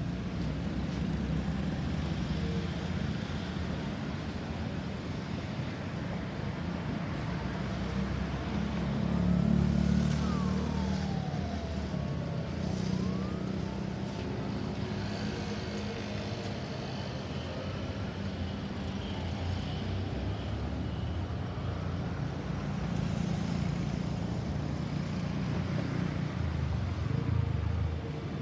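Road traffic running steadily, with a vehicle passing loudly about ten seconds in. From then on an emergency vehicle siren wails faintly above the traffic, sweeping up and down in pitch.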